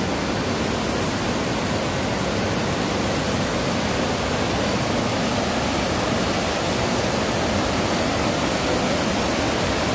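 Small waterfall cascading over rocks: a steady rush of falling water.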